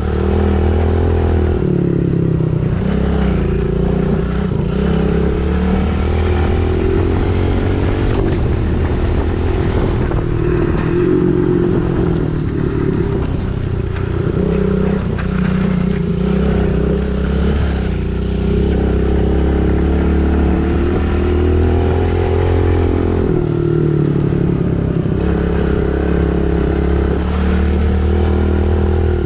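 Pit bike engine running under way, its pitch rising and falling every few seconds as the throttle is opened and closed.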